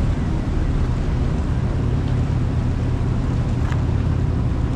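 Ferry engine running with a steady low drone, with propeller wash churning the water and wind on the microphone.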